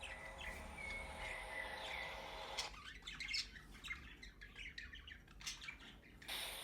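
Budgerigars chirping in short, rapid calls, with a few brief whistled notes.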